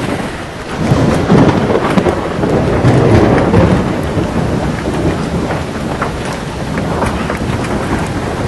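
Thunderstorm: heavy rain with a low rumble of thunder that swells about a second in and eases after a few seconds, with scattered sharp ticks over the steady rain noise.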